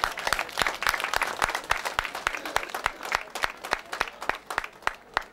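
A small crowd applauding, the claps dense at first and thinning out toward the end.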